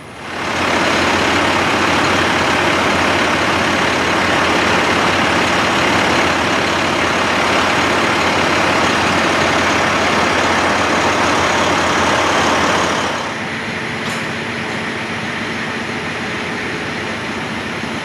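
Heavy truck engine revved up high and held steady, dropping back to a lower, idling level about 13 seconds in.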